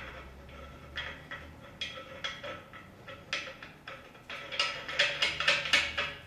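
Heavy hex nut being spun on by hand onto a stud: scattered metallic clicks and ticks, then a quick run of clicks about four and a half seconds in, the loudest part.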